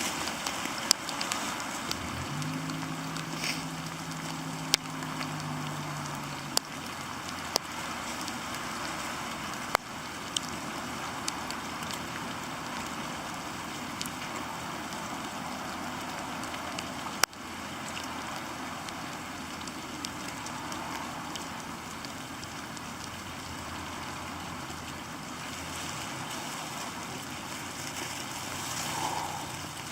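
Steady rain with sharp drip taps at irregular intervals. About two seconds in, a low steady hum with a second tone above it sounds for about four seconds.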